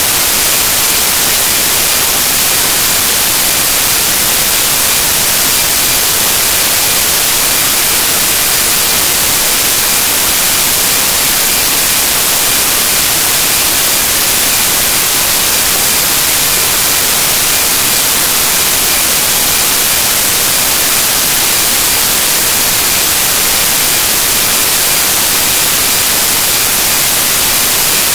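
Loud, steady static hiss that never changes, strongest in the high end, with no voice or other sound in it: the noise of a corrupted audio track.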